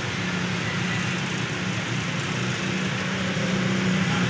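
Road traffic on a wet street: a steady hiss of tyres and engines, with a low steady hum underneath.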